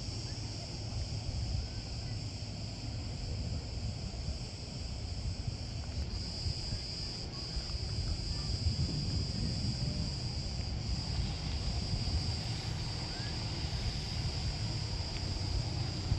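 Insects buzzing in a steady, continuous high-pitched chorus that grows louder about six seconds in, over a low rumble.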